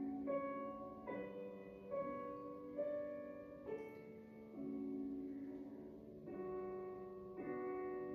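Slow, gentle background music led by piano, with soft held chords changing about once a second.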